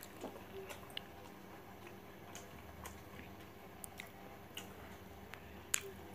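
Hand-eating sounds: scattered small clicks and taps as fingers tear roti and scoop egg bhurji from stainless steel plates, with chewing, over a low steady hum. The sharpest click comes near the end.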